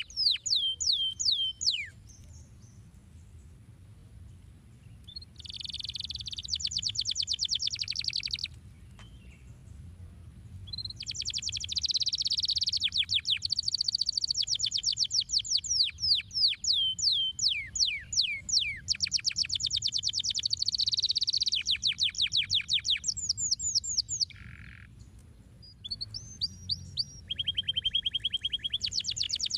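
Domestic canary singing: long phrases of rapidly repeated down-slurred whistled notes and fast trills, broken by a few pauses of a couple of seconds.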